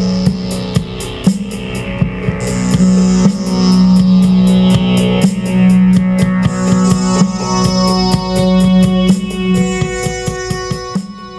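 Intro music: an instrumental track with guitar, keyboard and a steady drum beat.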